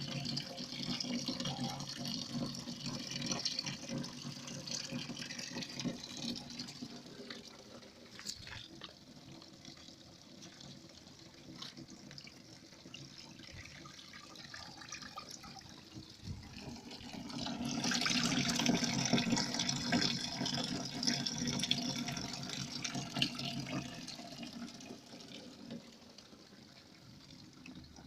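Water pouring and splashing into a tank, louder in the first few seconds and again from about 18 to 24 seconds in.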